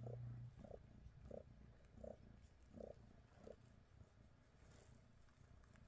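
Domestic cat purring, with a short raspy sound on each breath about every 0.7 seconds that fades after about three and a half seconds. A low steady hum stops half a second in.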